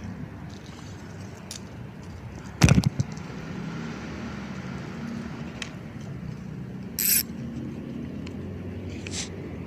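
Steady low rumble of traffic on the nearby toll road. A single loud knock comes about two and a half seconds in, and a brief sharp rattle near seven seconds.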